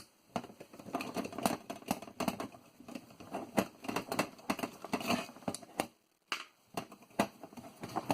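Irregular clicks, knocks and scrapes of the metal and plastic parts of a floppy diskette drive being handled and pried at during disassembly, with a brief break about six seconds in.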